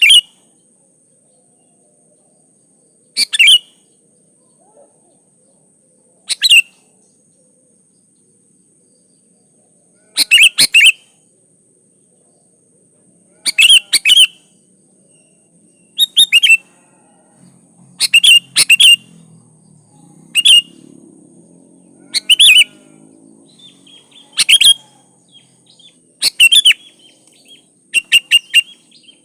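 Sooty-headed bulbul (kutilang) singing short, loud chirping phrases every two to four seconds, the phrases coming closer together toward the end. A faint steady high hiss runs underneath.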